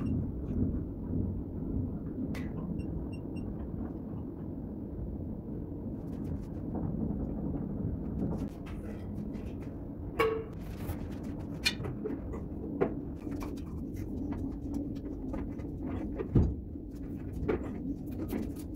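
Scattered clicks and knocks of tiling work: tools, buckets and a large ceramic tile handled on a tiled floor, over a steady low rumble, with one heavier thump late on as the tile is set down.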